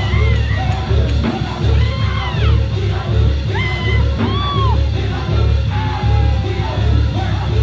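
Live church praise music with a pulsing bass line and voices singing and shouting over it.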